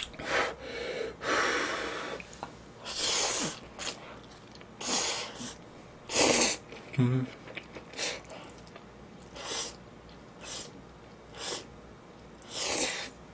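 A person slurping hot instant ramen noodles off chopsticks, about ten separate slurps with quieter chewing in between, the loudest about six seconds in.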